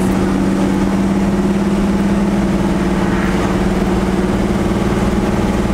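Cammed 1984 Chevy C10 truck engine running steadily as the truck cruises, heard from inside the cab.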